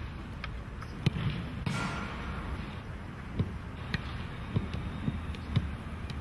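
Soccer ball being kicked and juggled: dull thuds of a foot striking the ball, irregular at first, then about two a second in the second half, over a steady outdoor hiss. A short rush of noise comes about two seconds in.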